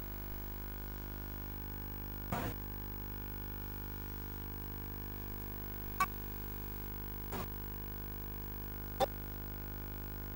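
Steady electrical mains hum with buzzy overtones, broken by four short knocks, the sharpest about six and nine seconds in.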